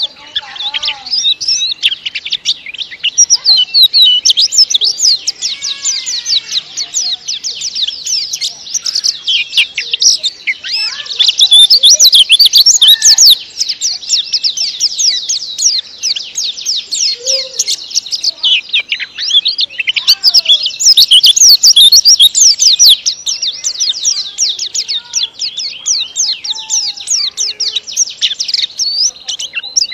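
A caged white-eye (pleci) singing one long, unbroken song of fast, closely packed high twittering notes that sweep up and down.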